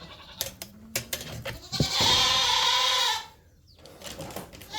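A dairy goat bleating once, a loud call of just over a second about two seconds in, with a few light knocks and clicks before it.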